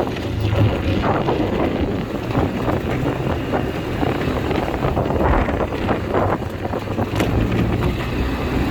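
ATV engine running steadily while riding, with wind buffeting the microphone in uneven gusts.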